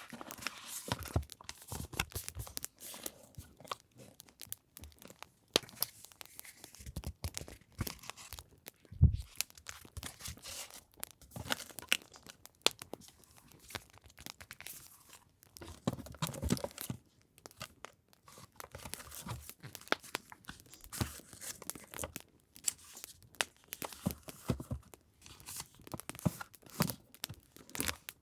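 Paper and packaging being handled by hand: irregular rustling, crinkling and tearing sounds made of many small sharp crackles.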